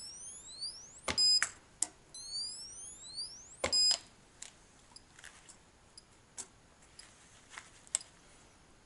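K-weld battery spot welder welding nickel strip onto 18650 lithium cells. Twice, a rising electronic chirp is followed by a sharp snap and a short beep as a weld pulse fires, about a second in and again near four seconds. Several lighter clicks follow.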